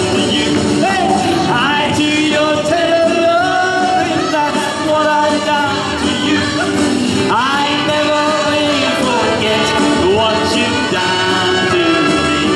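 Music: a man singing a song to guitar accompaniment, the voice holding and sliding between long notes.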